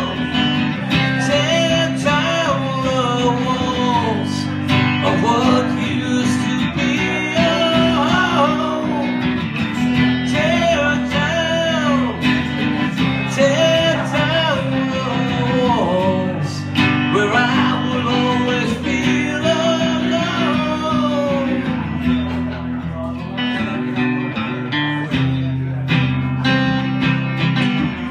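Acoustic guitar strummed steadily while a man sings a slow, drawn-out melody, played live.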